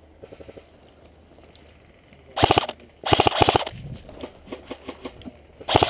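Airsoft electric rifle firing short full-auto bursts: two rapid rattling bursts of evenly spaced shots a little over halfway through, and a brief third burst near the end.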